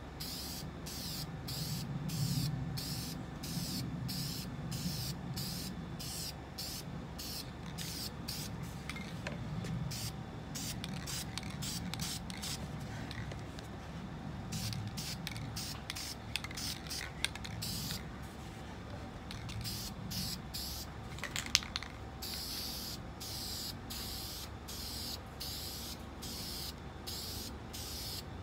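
Aerosol spray paint can hissing in short bursts, about two a second, as a colour coat is sprayed onto a guitar body. A single sharp click a little past two-thirds of the way through.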